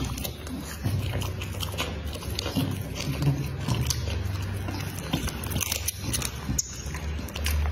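A bully-type dog chewing raw meat, with irregular wet bites and smacking of the jaws.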